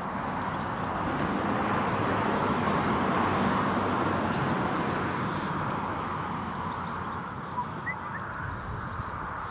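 Rushing noise of a passing vehicle that swells over the first few seconds and then slowly fades, with a couple of brief bird chirps near the end.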